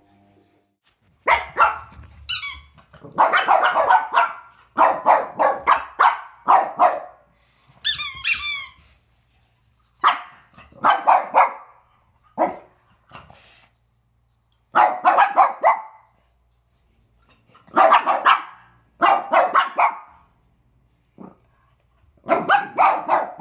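Two Pekingese dogs barking repeatedly in quick groups at a squeaky plush toy, with pauses between the groups. A squeaky toy squeaks briefly about 2 seconds in and again about 8 seconds in.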